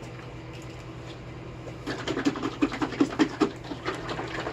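A quick run of sharp knocks, about five a second, lasting about a second and a half in the middle.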